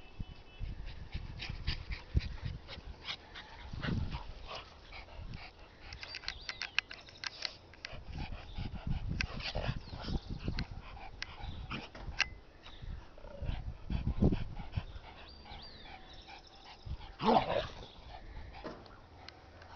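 A small white dog and a brown dog tussling and chasing each other, with scattered short barks and yips over the rustle of their movement; the loudest call comes near the end.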